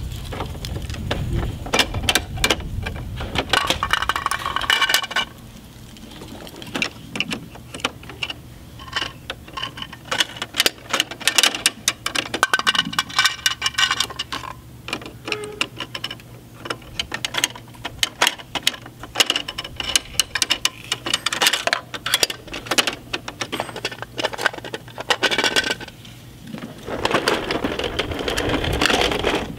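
Hard plastic clicking and rattling from a Bruder toy rear-loading garbage truck as it is handled: small toy trash bins knock against the rear loader and its mechanism clicks, in many quick irregular clicks.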